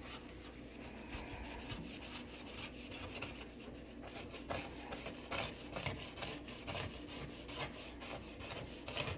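A sponge rubbing foamy oven cleaner over a glass-top stove in repeated short back-and-forth strokes, a wet scrubbing sound.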